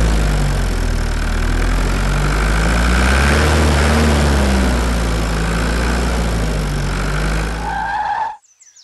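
Engine sound of a ride-on loader tractor driving: a steady low rumble whose pitch rises and falls slightly, cutting off abruptly near the end.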